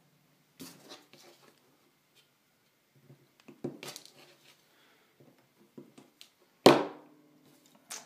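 Battery cells and a pair of side cutters being handled on a desktop: scattered light clicks and knocks, with one sharp, louder knock that rings briefly, about three-quarters of the way through.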